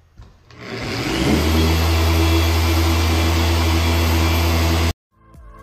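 Griot's Garage random orbital polisher spinning up about half a second in and then running at a steady speed as its pad works compound over a car's painted hood. The sound cuts off abruptly near the end.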